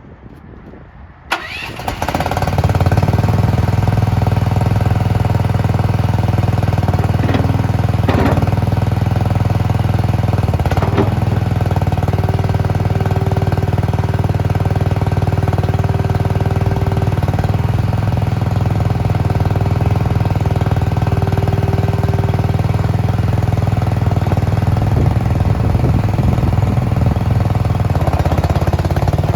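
AGT SDA-140W mini skid steer's engine starting about a second in, then running steadily at idle.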